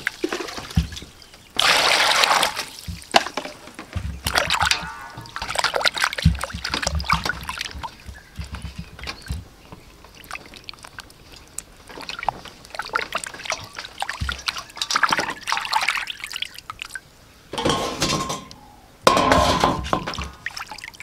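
Water pouring into a stainless steel bowl and sloshing as pieces of fish are rinsed and rubbed clean by hand, with splashes, drips and light knocks against the metal. Bursts of pouring come about two seconds in and again near the end.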